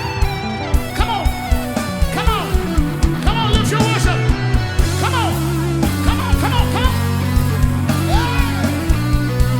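Live worship band playing loud: bass, a drum kit with a fast, even kick, and a lead line of notes that bend up and fall back.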